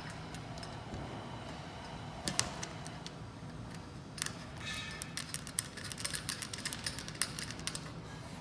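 Small metallic clicks as bolts and washers are fitted by hand to fasten a padded bench seat to its steel frame. There are a couple of clicks about two seconds in, then a quick irregular run of clicks from about four to seven seconds in, over a low steady hum.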